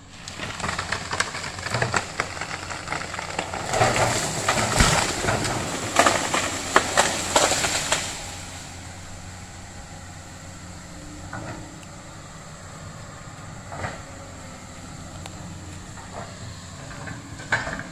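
Komatsu PC200 excavator's diesel engine running steadily, with a loud burst of dense crackling and snapping for the first eight seconds or so, then a few single sharp cracks.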